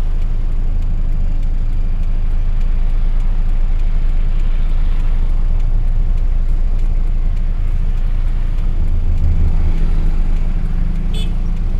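Heard inside the cab of a 1984 Daihatsu Hijet 1000 on the move: its three-cylinder engine drones steadily under a haze of road noise.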